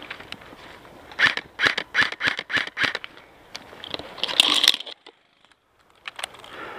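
Airsoft gun firing a quick string of sharp cracks, about five a second for nearly two seconds, then a denser rattle a second later. The sound drops out almost completely for about a second near the end.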